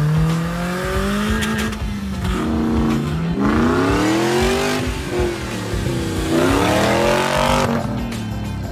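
Off-road 4x4 engines revving hard as they drive through mud, the pitch climbing and dropping several times in quick succession.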